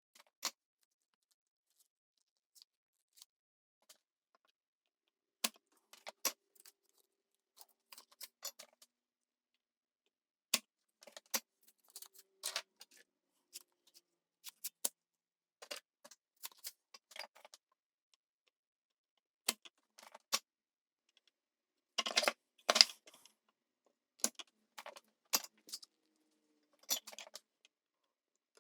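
Scattered sharp clicks and light metallic taps of hand tools working on a circuit board as old solder is cleaned out of the joints. The loudest cluster of clicks comes about two-thirds of the way in.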